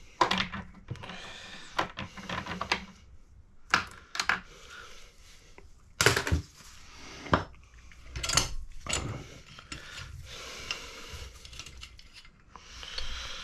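Metal tool parts clicking, clinking and knocking against each other and the aluminium cylinder head as a valve spring compressor is fitted and worked over a valve, in irregular sharp strikes with a brief ringing after some.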